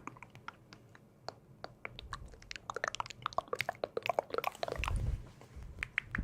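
Close-miked foley clicking: a run of small, sharp clicks, sparse at first and growing dense and busy from about two seconds in, with a low thump about five seconds in.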